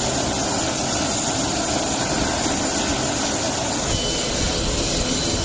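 Military transport aircraft's engines running steadily: a constant loud rush with a thin high whine above it.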